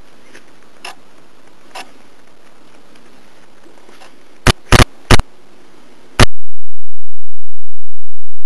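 Quiet steady hiss with a couple of faint ticks, then three loud sharp clicks in quick succession and a fourth about a second later, after which the sound cuts off suddenly to silence.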